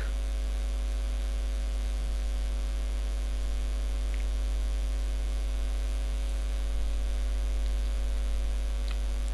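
Steady low electrical mains hum with a row of evenly spaced higher tones above it, unchanging throughout.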